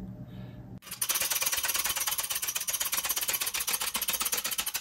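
Shop hydraulic press being run, giving a fast, even, mechanical rattle that starts about a second in and cuts off suddenly; the press is pushing a new oil seal into the overdrive's rear housing.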